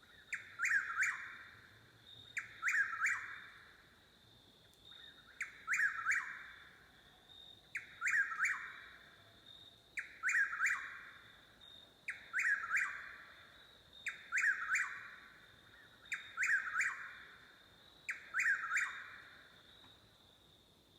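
A night bird calling the same short phrase over and over, nine times, about every two seconds: a soft first note, then a louder sweeping part. Behind it runs a steady high insect trill.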